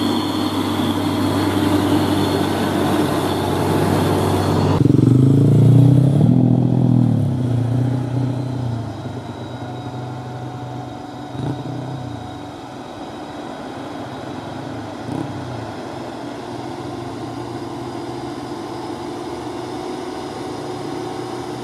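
Heavy diesel truck engines. A loaded truck drones steadily as it passes close by. After an abrupt change about five seconds in, the engines rev with the pitch rising and falling, then settle into a quieter, steady drone as the trucks labour up the road.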